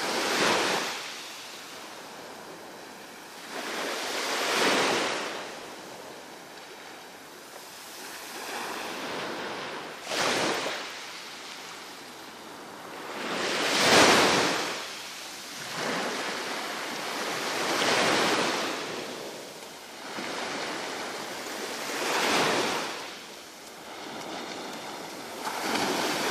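Sea of Azov surf: waves breaking and washing in one after another, a swell of surf every few seconds.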